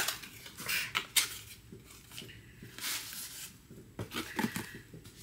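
Cardboard packaging rustling and items being handled and set down, with a sharp knock at the start and another about a second in.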